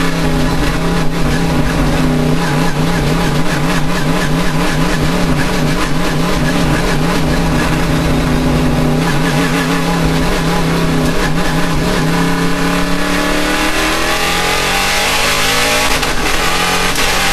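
Race car engine running at steady revs with a wavering note. About twelve seconds in it rises in pitch as it revs up and accelerates.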